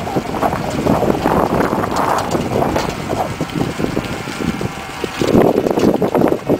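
Rear-mounted rototiller on an all-electric tractor churning soil: a rough, uneven noise that grows louder about five seconds in.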